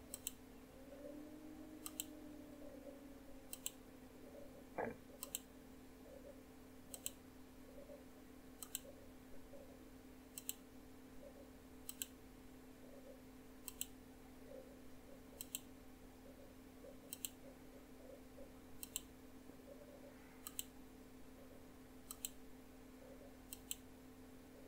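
Computer mouse button clicked over and over, about one click a second, each a sharp little double tick, over a faint steady hum. One duller knock comes about five seconds in.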